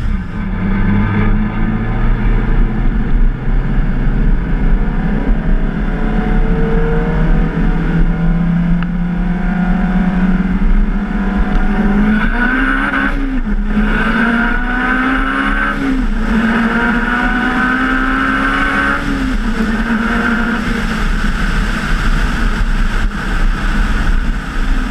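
Turbocharged Honda S2000 four-cylinder engine pulling hard under full throttle. The engine note climbs steadily, then rises and breaks off at a run of gear changes a few seconds apart before settling into a steady pitch near the end.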